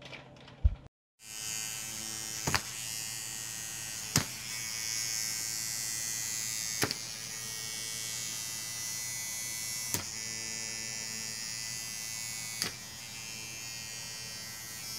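A small electric motor buzzing steadily, starting about a second in, with a sharp click every few seconds.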